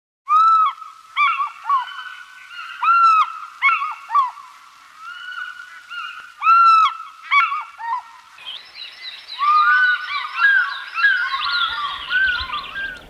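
Birds calling: about a dozen separate loud calls, each rising and falling in pitch. From about eight seconds in, many birds call over one another in a dense chorus that cuts off at the end.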